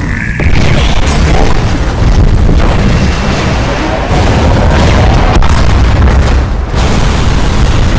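Explosion and boom sound effects from an animated battle, one after another over a heavy low rumble, with several abrupt cuts.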